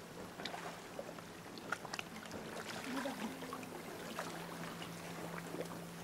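Small splashes, drips and water lapping at the rock edge as a swimmer climbs out of the sea, over a steady low hum.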